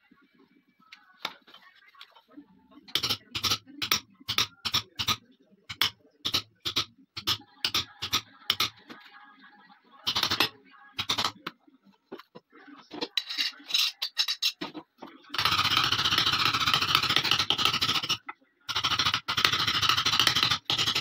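A hammer striking a steel chisel into a hardwood gun stock: a run of sharp knocks about two a second. In the last third a louder, dense continuous rasping noise takes over, with a short break just before the end.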